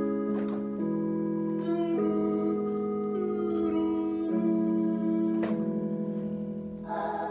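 Electronic keyboard playing a slow run of held chords that change about every second, the held notes wavering slightly.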